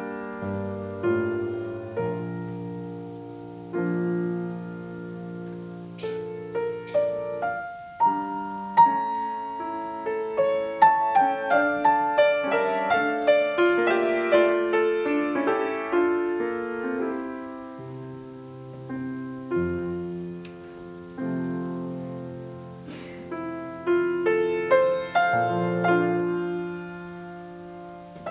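Grand piano played solo: slow romantic chords over held bass notes, quickening in the middle to a stretch of many rapid notes, then easing back to slower chords.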